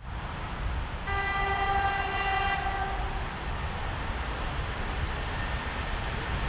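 Electric locomotive horn sounding one steady-pitched blast of about two seconds, starting about a second in, from an EP20 passenger locomotive approaching down the line, over a steady low rumble.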